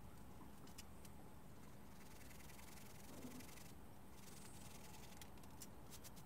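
Faint rasping of a Japanese hand saw cutting a thin wooden strip for about a second and a half near the middle, with a few light clicks of tools on the bench.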